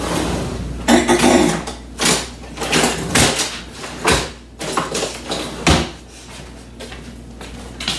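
A kitchen utensil drawer being rummaged through: metal utensils clattering and rattling, with a couple of sharp knocks about four and six seconds in.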